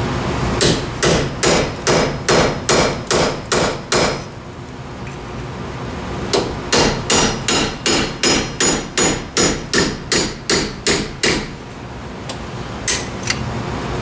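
Hammer striking steel on a car's wheel hub assembly while the hub is being knocked loose, in two quick runs of ringing metallic blows with a short pause between, then two last taps near the end. The strikes are kept gentle so as not to damage the threads.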